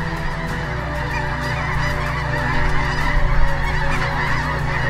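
A large flock of snow geese calling in flight, a dense continuous chorus of many overlapping honks.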